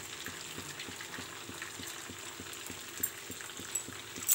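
Rice-flour segdalu rings deep-frying in refined oil in a non-stick pan on a low-to-medium flame: a steady sizzle and bubbling with many small crackles and a couple of sharper pops near the end.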